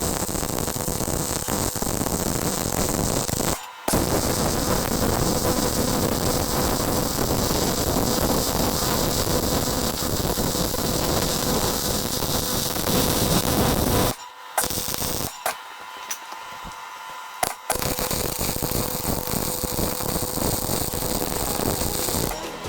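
Small Clark Turbo MIG welder laying a root pass: a steady crackling hiss from the arc. The arc breaks off briefly about four seconds in and pauses for several seconds past the middle, with a few clicks, before welding resumes.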